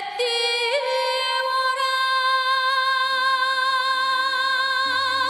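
A woman singing Korean traditional folk song (minyo) in a full, bright voice. She holds one long note that slides up a little about half a second in, then stays steady until it ends near the close.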